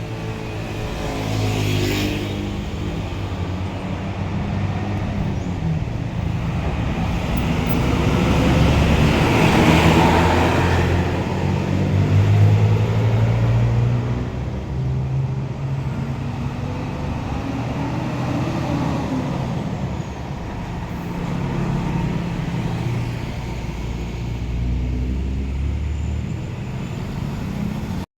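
Heavy diesel vehicles, buses among them, driving past on a road, their engine notes shifting in pitch as they go by. The loudest pass comes about ten to thirteen seconds in.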